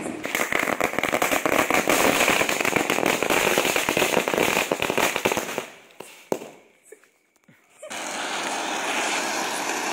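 A string of ground firecrackers going off in a dense, rapid run of crackling bangs for about five and a half seconds, then stopping, with a few scattered single pops after it. Near the end a steady rushing hiss sets in.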